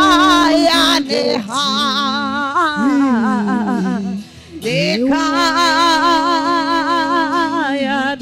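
A woman singing a slow gospel song through a microphone, holding long notes with a wide vibrato. About a second in, her voice slides down through several notes and breaks off briefly. It then swoops up into another long held note.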